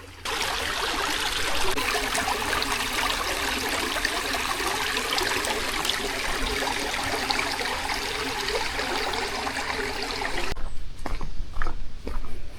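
Small creek cascades over rocks: a steady rush and splash of running water that cuts off suddenly near the end.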